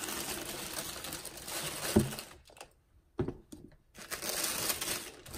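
Tissue paper crinkling and rustling as hands pull it back inside a cardboard shoebox, with two soft knocks, about two and about three seconds in.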